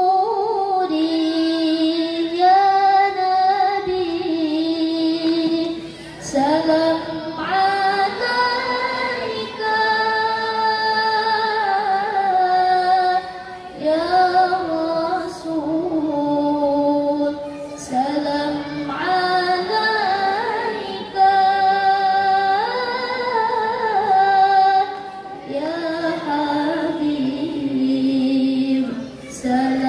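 A young woman's solo melodic Quran recitation (tilawah, sung in qari'ah style), amplified through a microphone: long ornamented phrases held on sustained notes, with short breaks for breath between them.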